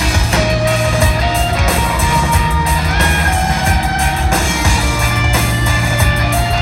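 Rock band playing live and loud: an electric guitar line of held notes that steps from pitch to pitch, over heavy bass and driving drums with crashing cymbals.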